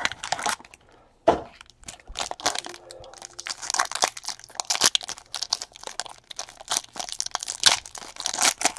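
Foil wrapper of a trading-card pack being torn open and crinkled by hand: a dense run of crackles and rips. There is a single sharp knock about a second in.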